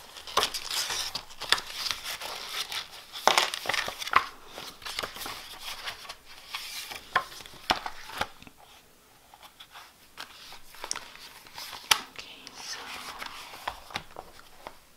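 Paper notebook refill and leather notebook cover being handled: rustling, sliding paper with scattered sharp taps, busiest in the first half and quieter after about eight seconds.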